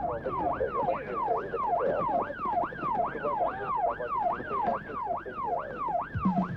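Emergency vehicle siren sounding a fast yelp, its pitch sweeping up and down about twice a second.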